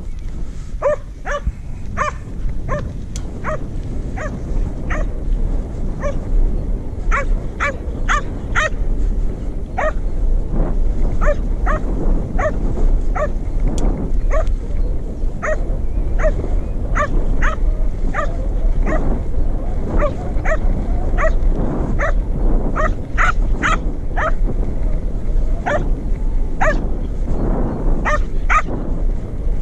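Border collie barking over and over in short, sharp barks, often one or two a second, over a steady low rumble.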